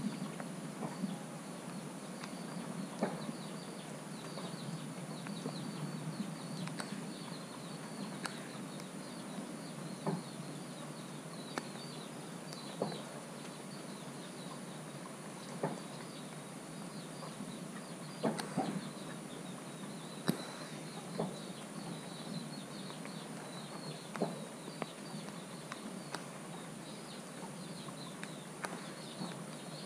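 Stormy outdoor ambience: scattered drops ticking sharply on the GoPro camera every second or two over a steady low rush, with faint high chirping throughout.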